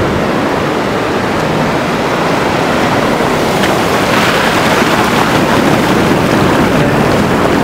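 Ocean surf washing onto the beach, with wind buffeting the microphone; the wash swells about four seconds in.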